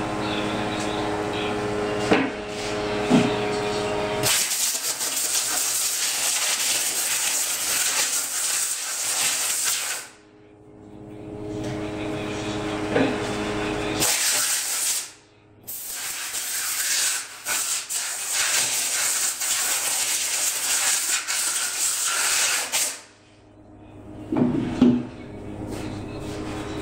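Compressed-air spray gun spraying primer onto the edges of an MDF board: three long hissing bursts, the first about six seconds, a short one, then one of about seven seconds, with brief pauses between. A steady machine hum with several tones runs under it and is heard alone in the pauses, with a few knocks near the start and end.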